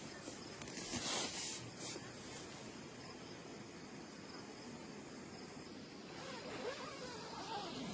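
Faint outdoor ambience with insects chirping steadily, and a short rustle about a second in.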